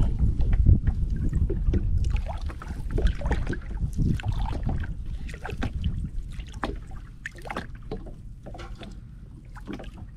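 Wind rumbling on the microphone, strongest in the first couple of seconds and then easing, over many small splashes, knocks and clicks of water and gear around a small boat while a fishing net is handled.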